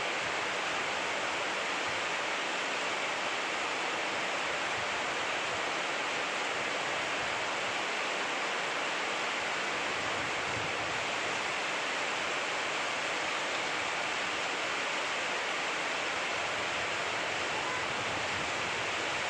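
Rain falling steadily: an even hiss with no breaks or changes.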